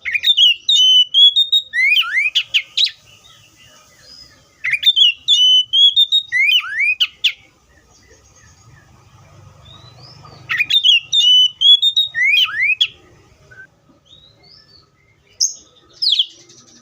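Oriental magpie-robin singing loud whistled phrases a few seconds apart, three in all. Each phrase rises, holds a wavering note, then breaks into quick slurred notes. A couple of short notes follow near the end.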